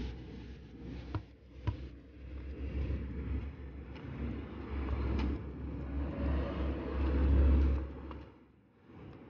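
A football being juggled: two sharp taps of foot on ball about a second in, with fainter taps later. Under them a steady low outdoor rumble swells to its loudest near the end, then drops away.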